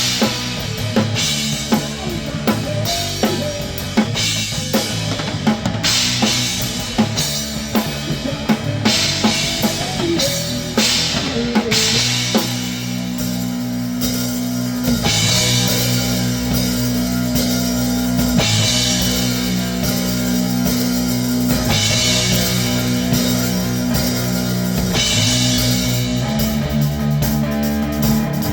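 Grunge rock band playing: a drum kit with kick, snare and cymbals drives the first part, and about twelve seconds in heavy sustained distorted guitar and bass chords take over, with cymbal crashes about every three seconds.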